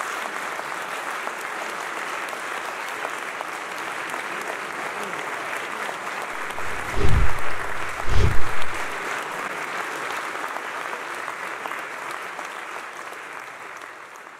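Audience applauding steadily, fading out near the end. Two dull low thumps about halfway through stand out as the loudest sounds.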